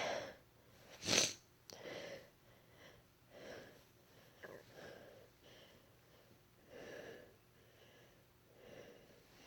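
Short, quiet breaths and sniffs through the nose, one every second or so, the sharpest about a second in: hitching breaths as an induced sneeze builds.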